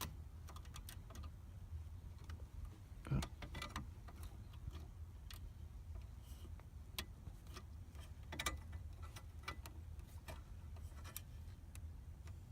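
Scattered small clicks and taps of metal on metal as the ignition lock cylinder, key and a small right-angle release tool are worked in a Subaru steering column, over a low steady hum. The two louder knocks come about three seconds in and at about eight and a half seconds.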